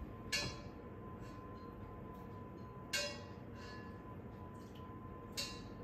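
Kitchenware clinking as a small glass cup is picked up and handled: three short, ringing clinks, about half a second in, at three seconds and near the end.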